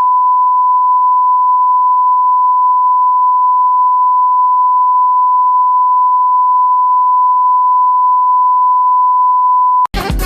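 Colour-bar test tone: one pure, steady pitch held unbroken at a loud level, cutting off abruptly near the end as music comes back in.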